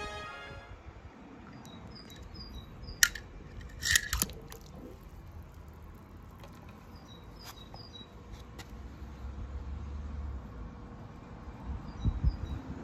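Small birds chirping faintly in two short bouts over a low steady background, with a few sharp knocks about three and four seconds in and a cluster of handling thumps near the end.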